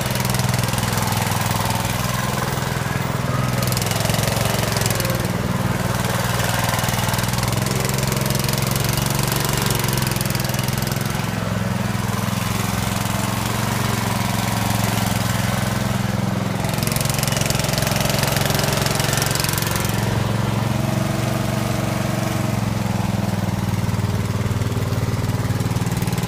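A Dixon ZTR45 zero-turn riding mower's 17.5 hp Briggs & Stratton engine running steadily as the mower is driven. A high rushing noise rides over the engine and drops away briefly three times. The mower has a little spindle bearing noise whenever it is running.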